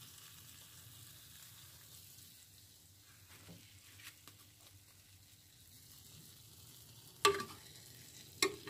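Dough rings deep-frying in a pot of hot oil: a soft, steady sizzle. Two short, louder sounds come near the end.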